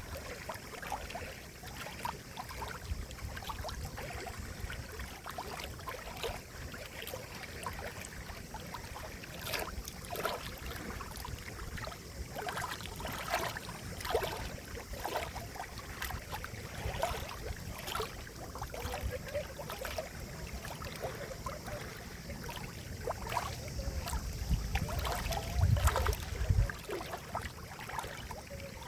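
Flowing water splashing and gurgling steadily, full of small drips and bubbling plops. Near the end a low rumble swells for a couple of seconds.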